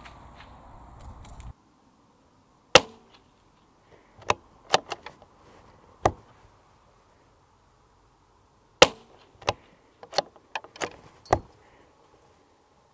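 CZ 457 .22 LR rimfire rifle firing two shots about six seconds apart. Each shot is followed by a quick run of sharp metallic clicks as the bolt is worked to eject the case and chamber the next round.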